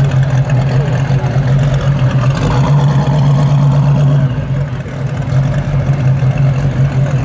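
Procharger-supercharged 440 cubic-inch (7.2 L) big-block V8 of a 1972 Plymouth 'Cuda running at low speed through its exhaust as the car creeps away. The engine note is steady and does not rev, and it grows a little quieter about four seconds in as the car moves off.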